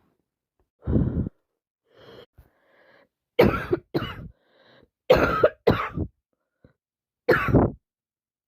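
A person with a heavy head cold coughing in a fit: about six harsh coughs, several coming in quick pairs, the last near the end.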